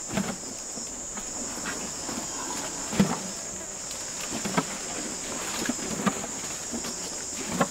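A steady, high-pitched insect chorus of crickets or cicadas, with a few scattered soft knocks and rustles, the sharpest about three seconds in.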